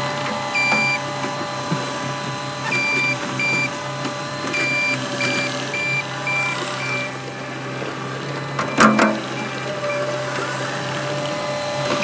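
CAT 259D compact track loader's diesel engine running steadily under work while its back-up alarm beeps in short bursts, about three a second at times, over roughly the first seven seconds. A sharp metallic clank, two quick strikes, sounds about nine seconds in.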